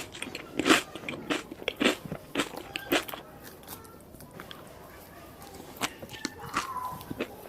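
A person biting and chewing food close to the microphone, with a run of sharp crunches over the first three seconds, a quieter stretch of chewing in the middle, and more crunches near the end.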